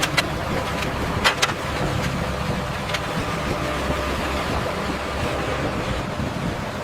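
Steady mechanical rumble with a noisy hiss, with a few short sharp clicks: one at the start, two in quick succession about a second in, and one near three seconds.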